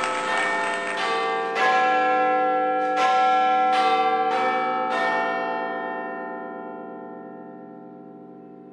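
An outro jingle of bell-like chimes: a run of struck bell notes over the first five seconds, each ringing on into the next, then the whole chord fades out slowly.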